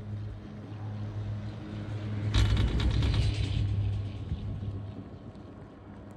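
Chairlift grip on a 1999 Poma high-speed detachable quad rolling over a tower's sheave train: over a steady low hum, a loud rumbling clatter of rapid clicks starts about two and a half seconds in and lasts about two seconds.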